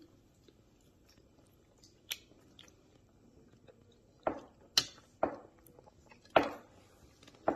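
A child chewing a mouthful of crab cake: quiet at first, then a run of short wet mouth smacks about every half second in the second half. A couple of sharp clicks, one about two seconds in, from a metal fork on a ceramic plate.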